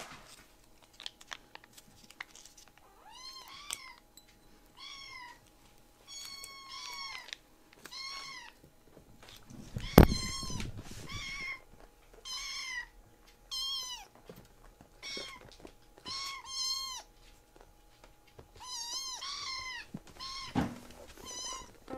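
A kitten meowing over and over, about fifteen short rising-and-falling meows one every second or so, begging for more treats. About halfway through there is one loud thump.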